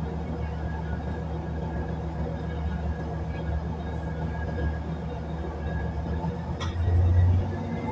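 Batara Kresna railbus running along the track with a steady low engine drone, heard from inside the cabin. Near the end there is a sharp click, followed by a brief, louder low rumble.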